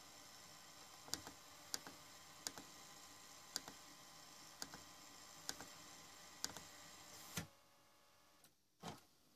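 Cassette mechanism of a JVC KS-FX630R car cassette receiver running faintly in a tape search mode, a steady whir with sharp mechanical clicks about once a second. It stops with a clunk about seven seconds in, followed by a single click near the end.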